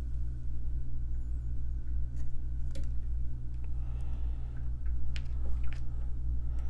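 Steady low background hum, with a few faint clicks from handling about two, three and five to six seconds in.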